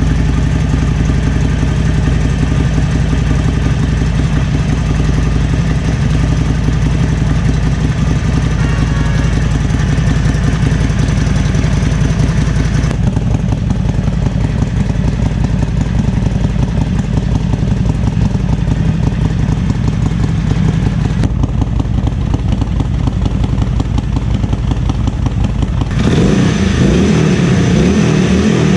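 Harley-Davidson Forty-Eight's air-cooled 1200 cc V-twin running just after start-up through aftermarket Screamin' Eagle exhausts, a steady idle that grows louder and rougher near the end as the throttle is worked.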